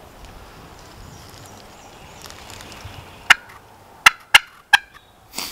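Hand-held friction pot call worked with a striker: after about three seconds, four short, sharp turkey-hen notes in an uneven quick series, with a brief scratchy noise just before the end.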